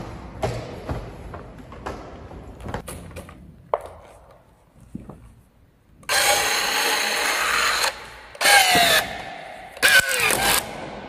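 Plastic sheeting rustling with scattered knocks as PE lagging is rolled onto a wooden cable drum. Then a battery-powered strapping tool runs on a green plastic strap: one steady motor run of about two seconds, then two shorter runs that fall in pitch as they wind down, the tool's tensioning and sealing cycle.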